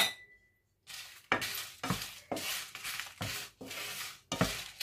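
A wooden spatula stirring and scraping dried red chillies and curry leaves around a nonstick frying pan as they dry-roast. The dry scraping strokes come about two a second and start after a brief silence near the beginning.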